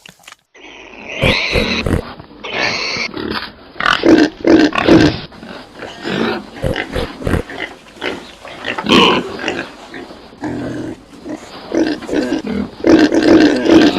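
Pig grunting in irregular short bursts, with a few longer, higher-pitched calls mixed in.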